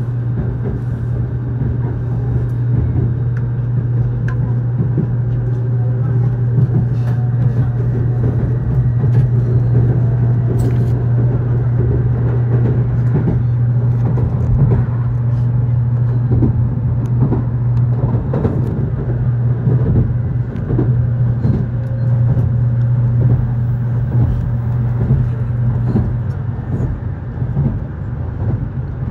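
Cabin noise inside an N700S Shinkansen car as the train pulls away and gathers speed: a steady low hum and rumble of the running gear. Faint tones rise slowly in pitch, and irregular clicks and knocks come from the wheels.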